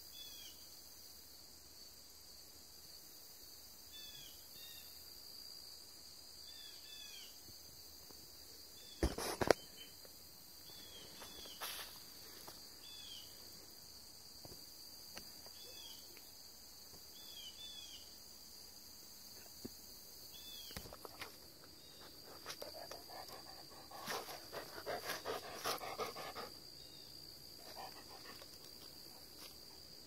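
Crickets chirring in a steady high-pitched drone, with faint short chirps repeating every second or two. A couple of sharp knocks come close to the microphone about 9 and 12 seconds in, the first of them the loudest sound, and a run of rough, breathy noises follows later, like an animal panting or sniffing nearby.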